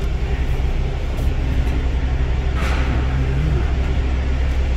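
Diesel pickup truck's engine running at low speed as it rolls off, heard from inside the cab as a steady low drone. A brief hiss comes about two and a half seconds in.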